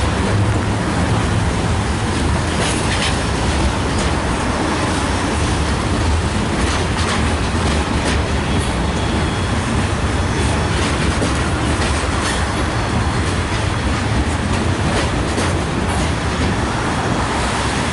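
A train rolling past at the crossing, its wheels making a steady loud rumble on the rails, with scattered clicks and clacks.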